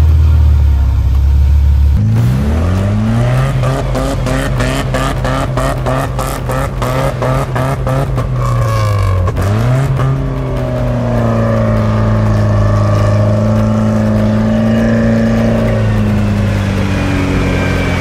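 An off-road 4x4's engine revving hard and held at high revs under load. About halfway through the revs drop and climb again. A fast run of knocks goes with the engine in the first half.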